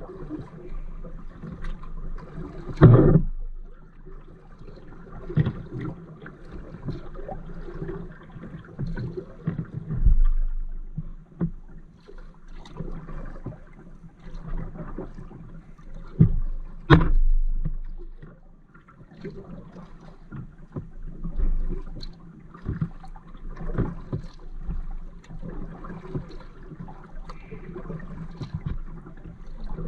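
Kayak paddling: the paddle blades dip and swish through the water in an irregular rhythm, with two sharper knocks, about three seconds in and near the middle, likely the paddle striking the hull. The sound is muffled, heard through the GoPro's waterproof housing.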